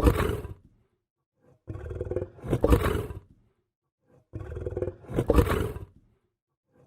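Lion growling in repeated bursts, about one every two and a half to three seconds, each a low rumble that builds to a louder peak. The bursts are identical, the same growl looped.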